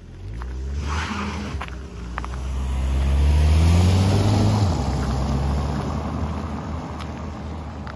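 A car passes close and drives on up a cobblestone street, its engine note rising as it climbs and loudest as it goes by. The engine note drops suddenly about halfway through and then fades as the car pulls away, with tyres rumbling on the cobbles throughout.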